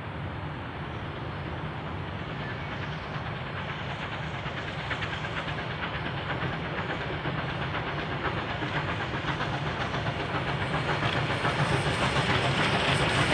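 K class 2-8-0 steam locomotive working a passenger train, its rapid, regular exhaust beats and hiss growing steadily louder as it approaches.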